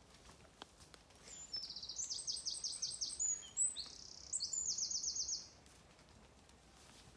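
A small songbird singing one song of about four seconds, starting about a second in: quick runs of high, rapidly repeated notes strung together.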